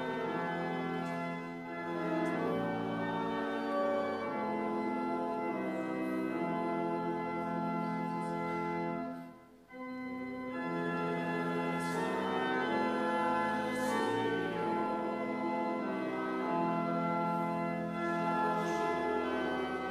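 Church organ playing slow, sustained chords that change every second or two, with a phrase ending in a short pause about halfway through.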